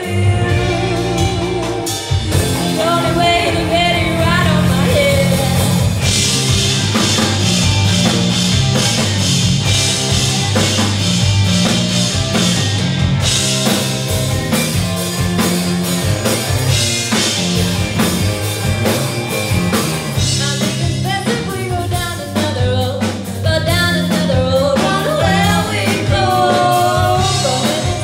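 Live rock band playing: a woman singing lead over electric guitar and drum kit.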